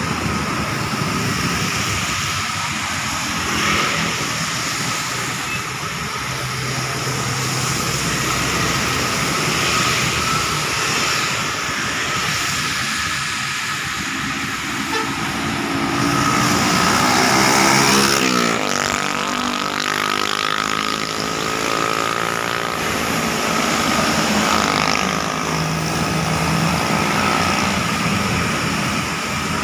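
Road traffic on a wet road: tyres hissing and engines of motorcycles, cars and buses running past. About 18 seconds in, a large bus goes by close, its engine the loudest sound, falling in pitch as it passes.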